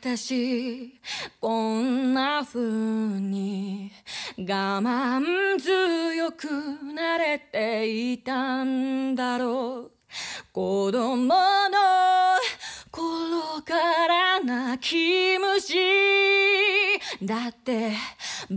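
Woman singing a Japanese pop ballad solo with no instruments playing, in phrases broken by short breaths, with vibrato on the long held notes.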